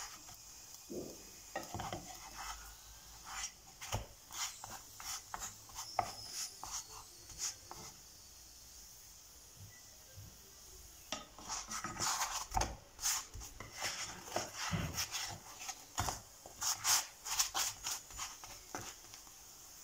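Wooden spatula scraping and knocking against a nonstick frying pan as gözleme are turned and pressed while frying. Scattered strokes in the first half, a lull around the middle, then a busier run of scrapes in the second half.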